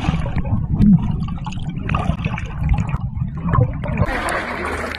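Water sloshing and gurgling, heard muffled through a waterproof camera held in the water while swimming. About four seconds in, a brighter splashing hiss sets in.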